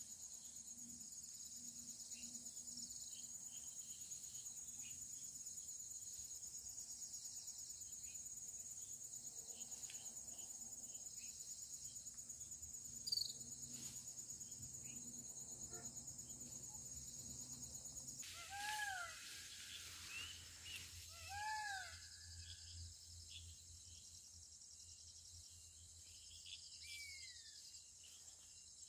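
Faint insect chorus: a steady high cricket trill, with scattered bird calls over it. About two-thirds of the way through, the trill changes and two arching, whistled bird calls sound a couple of seconds apart, followed by a few short falling chirps near the end.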